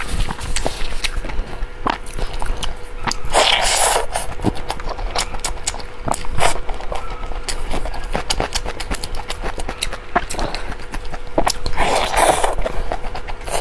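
Close-miked eating sounds: wet chewing, lip smacking and sucking on sticky, sauce-glazed meat, with many sharp mouth clicks and longer slurping sounds about three and a half seconds in and again near the end.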